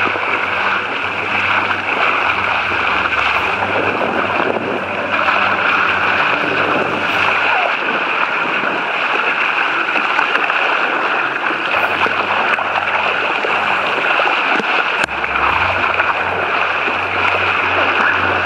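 Water rushing and splashing along the hull of a small sailboat moving fast through choppy water, with wind buffeting the microphone in gusts, strongest in the last few seconds.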